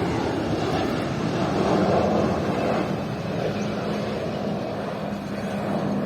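Airliner flying past, its engine noise a loud steady rush that slowly fades as it moves away.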